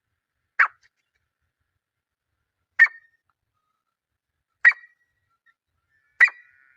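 Grey francolin calling: four short, sharp calls, about two seconds apart.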